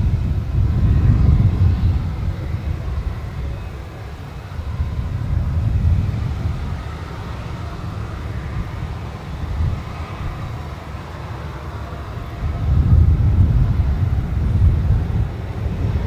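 Distant Boeing 767-300 twin-jet airliner on final approach: a low engine rumble that swells and fades, loudest near the start and again a little before the end.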